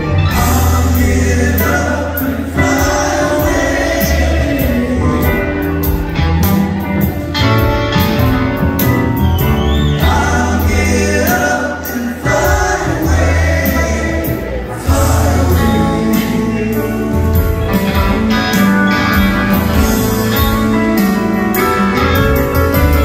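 Live band playing a song with a singer's voice over piano and upright bass, recorded from among the audience.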